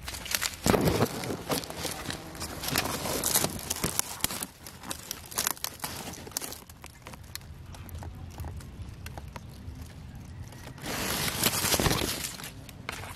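Dry leaves, grass stalks and twigs rustling and crackling in undergrowth, with a thick stretch of crunching about a second in and another near the end.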